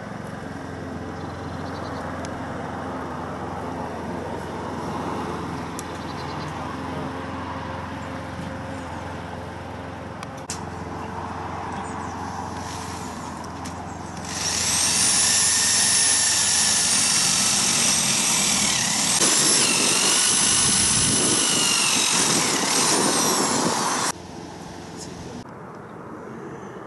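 A handheld power tool runs with a high whine for about ten seconds, starting about halfway through; its pitch sags briefly partway through, then falls before it cuts off suddenly. Before it, a steady low hum.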